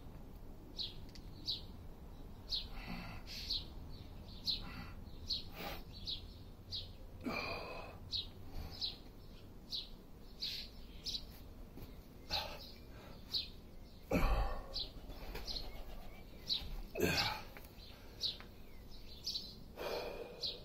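Small birds chirping with short, high, repeated notes, about one a second. A few louder breathy rushes stand out, the strongest about two-thirds of the way through.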